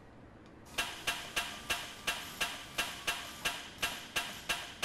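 Hand tool working a bolt on a steel suspension knuckle: sharp metallic clicks start about a second in and come at an even pace of about three a second, each ringing briefly.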